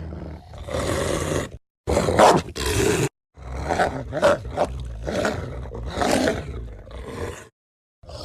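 Werewolf sound effect: a series of growling roars, cut apart by short dead silences.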